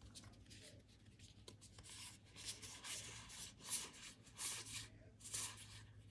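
Magic: The Gathering trading cards sliding against each other as they are moved one by one from a stack in one hand to the other, a run of faint, soft swishes.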